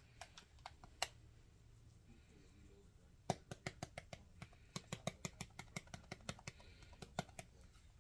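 Black pepper being dispensed from its container into the pot: a run of quick, irregular small clicks and taps, a few scattered at first and then dense for about four seconds.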